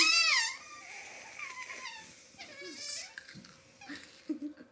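A girl's high-pitched, squealing laughter, loudest in the first half second, then trailing into quieter wavering giggles with a second short burst about three seconds in.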